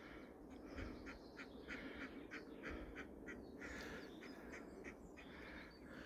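Live decoy duck hens quacking faintly at a distance in a steady run of short calls, about two or three a second: decoys calling to draw in passing drakes.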